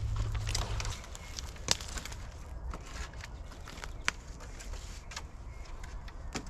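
Scattered light clicks and crackles, with a low steady rumble that stops about a second in.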